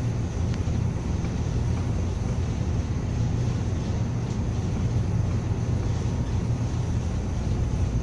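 Cargo ship under way at sea: a steady low rumble with the rush of wind and of sea water breaking along the hull.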